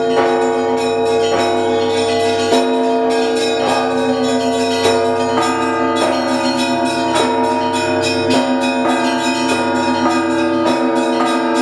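Russian Orthodox church bells of the Trinity-Sergius Lavra belfry rung together, calling to the evening service. Rapid strokes on the small bells ring out over the steady hum of the larger bells.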